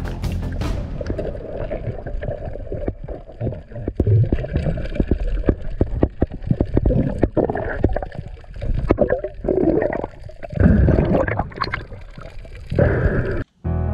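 Underwater sound on a freediver's action camera: water gurgling and rushing against the housing as it moves along the reef, with many irregular sharp clicks.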